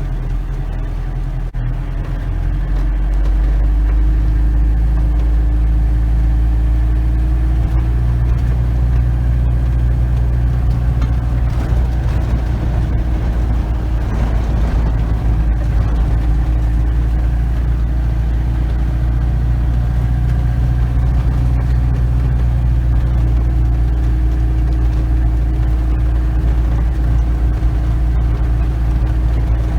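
DAF 400 panel van's engine running as the van drives slowly along a sand beach. It picks up revs and grows louder about two to four seconds in, then holds a steady drone.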